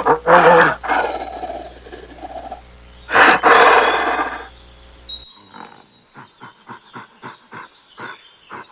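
Gorilla roaring: two loud, rough roars about three seconds apart. Then, about five seconds in, a run of short knocks at roughly three a second.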